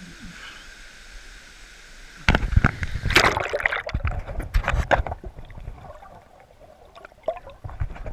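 Steady rush of falling water, then a little over two seconds in, about three seconds of loud close splashing and sloshing of water with rumbling and knocks near the microphone, fading to scattered smaller splashes.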